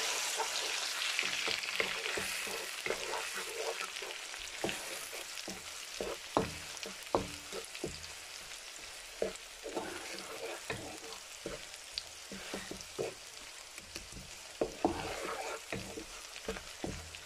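Chopped onions sizzling in hot oil in a kadhai, stirred with a wooden spatula that knocks and scrapes against the pan many times. The sizzle is loudest at first and dies down gradually.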